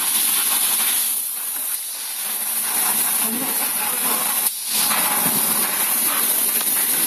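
Steady loud hiss of rushing air on a factory floor, breaking off sharply for a moment about four and a half seconds in.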